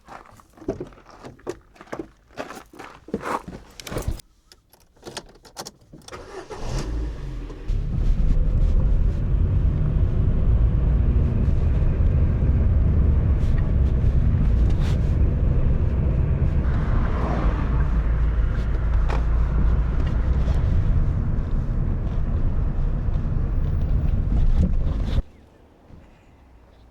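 A run of scattered clicks and knocks, then, from about eight seconds in, the steady low rumble of a car on the move, which cuts off suddenly near the end.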